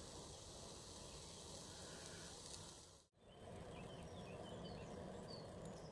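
Chopped vegetables and beaten egg sizzling faintly in a hinged double frying pan. The sizzle cuts out for a moment about three seconds in, then carries on.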